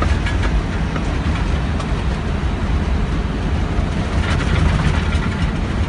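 Airbus A320 flight-deck noise in the seconds after lift-off: engines at takeoff thrust and air rushing past the airframe make a loud, steady rumble.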